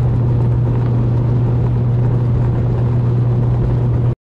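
Motorboat engine running steadily, a loud even drone that stops suddenly near the end.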